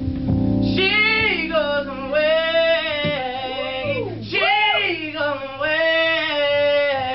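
Live male singer's high vocal runs, gliding up and down through long drawn-out phrases. A low, steady held chord from the accompaniment sits underneath.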